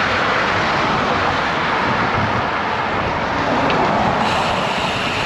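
Steady rush of gusty wind buffeting an action camera's microphone on a moving road bicycle, a little brighter and hissier from about four seconds in.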